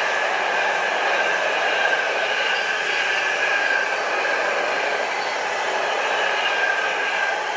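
Container freight train's loaded flat wagons rolling past at speed: a steady rush of steel wheels on rail, with a faint high ringing tone held through it.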